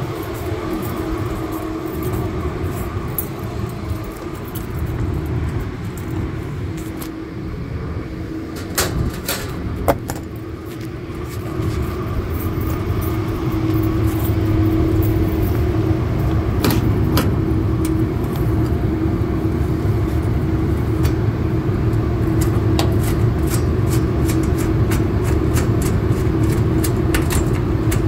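Steady mechanical hum and rumble of rooftop refrigeration and HVAC equipment running, with one held tone under it. A few sharp clicks and metallic jangles come through the middle, and the hum grows louder about halfway through.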